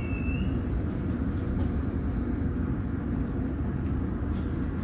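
Underground train carriage with a steady low rumble as the train draws up or stands at the platform, with one brief high wheel or brake squeal right at the start.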